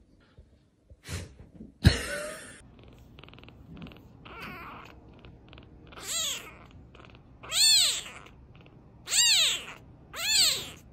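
A young black kitten meowing four times, each a high cry that rises and falls in pitch. About two seconds in there is a single sharp thump, the loudest sound.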